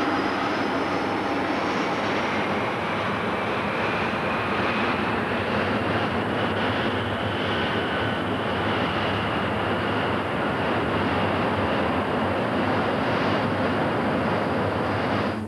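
RAF Phantom jet fighter engines running at high power during a scramble: a loud, steady jet roar with whines that slowly rise in pitch.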